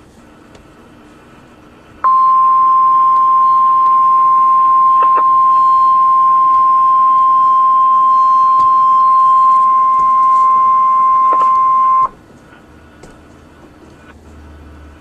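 NOAA Weather Radio's 1050 Hz warning alarm tone: one steady high tone held for about ten seconds, starting about two seconds in and cutting off sharply, over faint radio hiss. It signals that an emergency alert broadcast follows.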